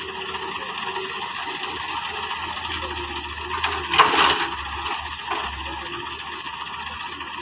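Diesel engines of a wheeled excavator and tractors running steadily, with a short loud rush of soil as the excavator bucket tips a load into the tractor trolley about four seconds in.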